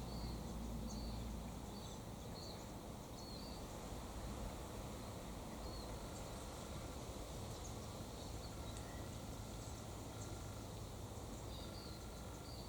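Quiet outdoor background with a low steady rumble, small birds giving scattered short high chirps. In the second half a faint short tone repeats every second or two.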